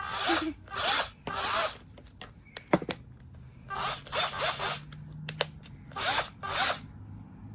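An 8V cordless drill run in several short bursts in three groups, with a few sharp clicks between them.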